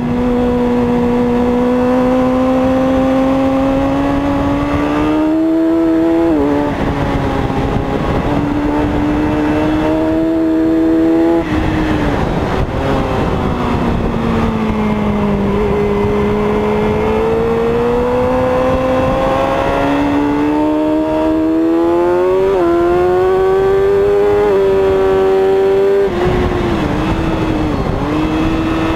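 Racing motorcycle engine heard from the bike itself at racing pace: its pitch climbs steadily under throttle and drops sharply at each upshift, about a second in every few seconds. Near the middle it sags lower as the bike slows, then climbs again through more gear changes, over a constant rush of wind noise.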